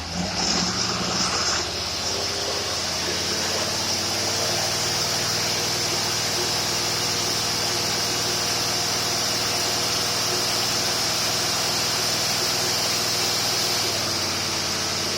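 Marine engine fitted with a rebuilt Rochester two-barrel carburetor running under load on a dynamometer. It picks up speed over the first few seconds, then holds a steady pace with a steady high whine alongside.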